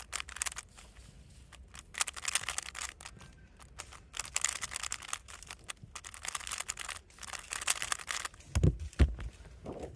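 Speedcube being turned by hand in quick runs of crisp clicking layer turns, with short pauses between the runs, then a couple of low thumps near the end.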